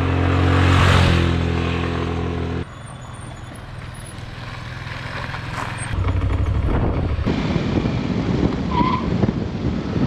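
Single-cylinder GY6 150cc scooter engine running, in cut-together riding clips: a loud steady engine tone cuts off abruptly about two and a half seconds in, followed by quieter engine and road noise that builds, then louder, rougher riding noise from about seven seconds on.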